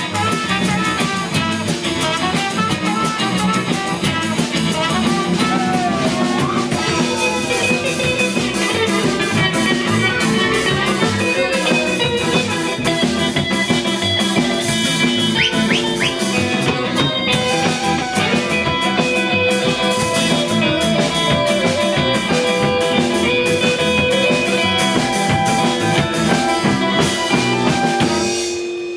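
Live rock band playing an instrumental passage with drum kit and guitar over a steady beat, the song winding down and stopping just before the end.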